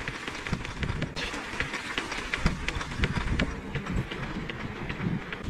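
Bicycle rolling along a snowy road: a steady rumble of the tyres with many small, irregular clicks and rattles.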